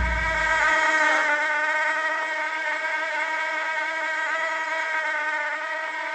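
Mosquitoes in flight whining: a steady, high buzz whose pitch wavers slightly. A low rumble fades out in the first second.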